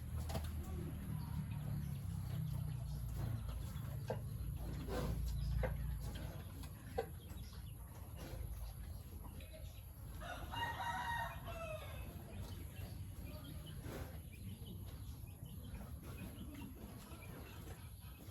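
Farmyard chickens, with a rooster crowing once about ten seconds in. A low rumble runs under the first few seconds, with a few short clicks.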